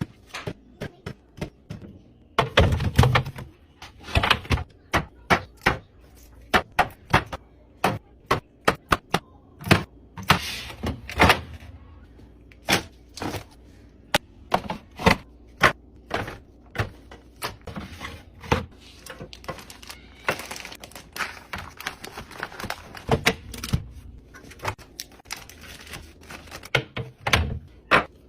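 Food containers and packages being set down and slotted into a fridge during restocking: a quick, irregular run of clicks, taps and knocks with an occasional heavier thunk.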